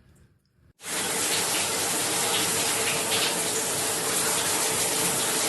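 Water running steadily from a tap. It starts suddenly about a second in.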